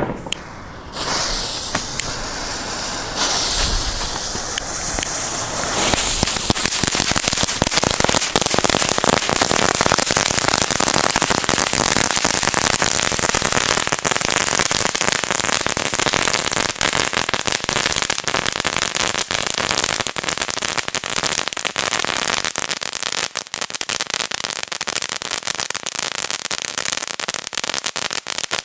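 Funke Knisterfeuer crackling ground firework burning: it catches with a hiss about a second in, then from about six seconds in a dense, continuous crackle of many tiny rapid pops over a hiss of sparks.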